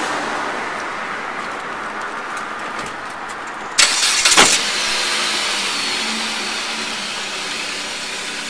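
A gray sedan being got into: steady outdoor noise, with a short loud burst about four seconds in.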